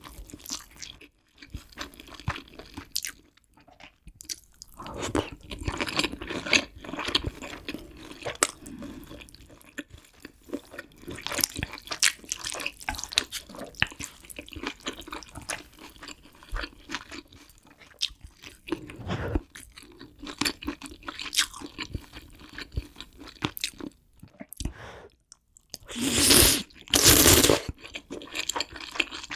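Close-miked eating sounds from kimchi stew with pork, tofu and ramen noodles: wet chewing and small clicks, with two loud airy mouth sounds near the end.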